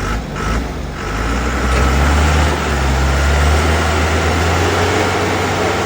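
A motor or engine running with a steady low drone and a broad rushing noise over it, growing louder about a second in and then holding.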